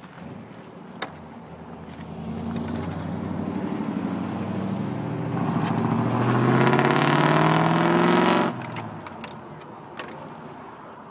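A motor vehicle accelerating along the road, its engine note rising in pitch and growing louder, then falling away sharply about eight and a half seconds in. A single sharp knock comes about a second in.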